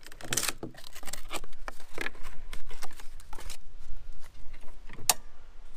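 Cardboard packing pieces being pulled off a lawn mower's handle and handled: an uneven run of rustles, scrapes and clicks, with one sharp click about five seconds in.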